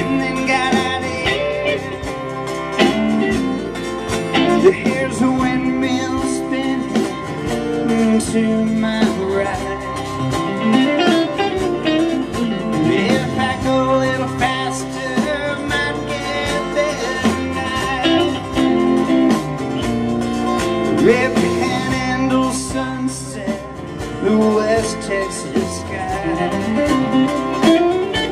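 Live band music: acoustic and electric guitars played over a drum kit, amplified through stage speakers, a steady country-style groove.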